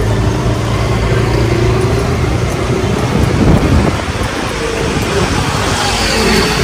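Motor vehicle engine running with steady road and traffic noise, briefly louder about three and a half seconds in.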